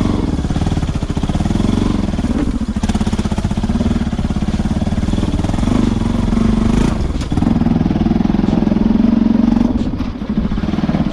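Bajaj Pulsar NS200's single-cylinder engine running as the motorcycle is ridden on a rough off-road track. Its level dips briefly about seven seconds in, then rises again.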